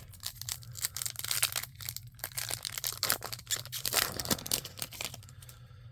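A trading card pack wrapper being torn open and crumpled by hand: a dense run of irregular crackles that thins out near the end.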